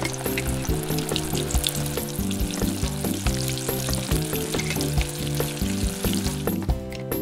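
Sound effect of food sizzling in a frying pan, over background music with a steady beat; the sizzling stops shortly before the end.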